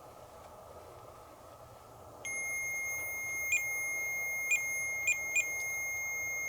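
MEL-8704 REM meter's antenna alarm going off: a steady high beep tone starts abruptly about two seconds in and holds, with several short louder chirps on top. It signals a disturbance of the field around the REM antenna, which the investigator takes as a spirit's response.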